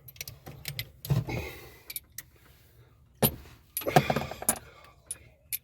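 Irregular sharp clicks, metallic clinks and brief scrapes from hand tools and small metal parts being handled, bunched about a second in and again around three to four and a half seconds.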